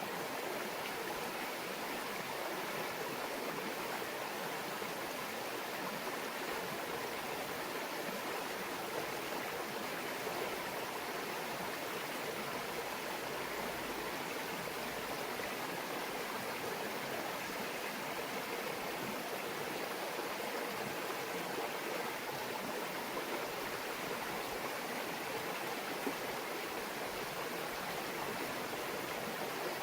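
A small stream babbling steadily: an even rush of running water with no breaks.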